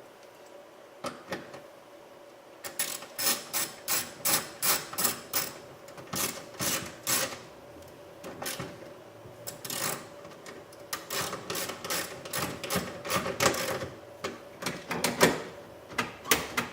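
Ratchet on a 10 mm socket clicking in repeated strokes, about two clicks a second, starting about three seconds in, with brief pauses: the bolt holding the interior door handle being tightened.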